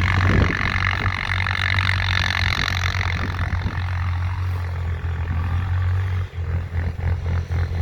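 Four-wheeler's engine running with a steady low hum, under a rushing hiss that fades after a few seconds; the hum wavers and briefly drops out near the end.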